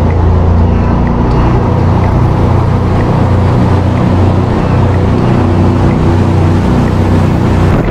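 Jet boat's engine running hard at speed, a steady low drone, with water rushing past the hull.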